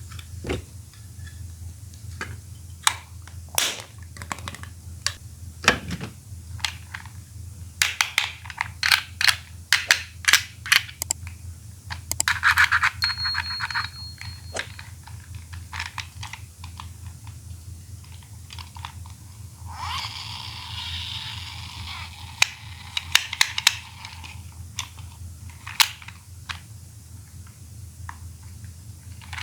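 Plastic toy Poké Balls clicking and snapping as they are handled, opened and shut: scattered sharp clicks, with a quick run of them about eight seconds in. Two stretches of rustling, scraping noise break in, about twelve and twenty seconds in, the first with a brief thin tone. A steady low hum lies underneath.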